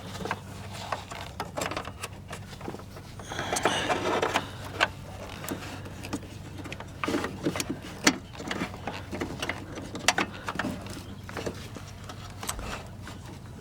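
Irregular clicks, knocks and rustling of hands fumbling with plastic parts behind a car headlight, reaching for the turn-signal bulb socket. A steady low hum runs underneath.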